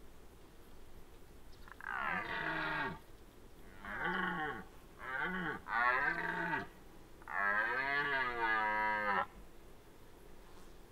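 Red deer rutting roars: five deep, drawn-out calls in a series, the last and longest lasting about two seconds.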